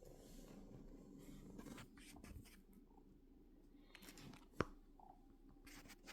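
Near silence: faint scratching and rustling, with one sharp click about four and a half seconds in.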